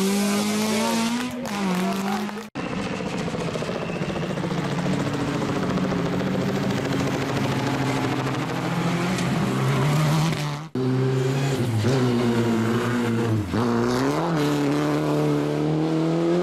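Rally car engines at full throttle, heard in three clips cut together. In the middle clip a Subaru Impreza rally car's turbocharged flat-four holds a steady note and climbs near its end. In the last clip another rally car's engine drops in pitch and rises again several times as it shifts and brakes.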